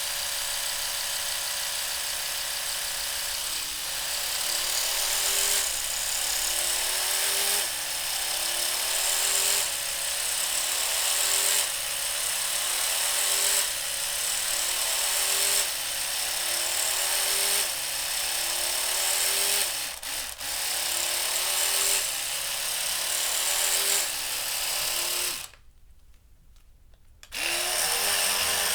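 Oral-B Smart 2000 electric toothbrush running with a buzzing hum. The buzz is steady at first, then settles into a regular rise in pitch about every two seconds. Near the end it cuts out for about two seconds and starts again.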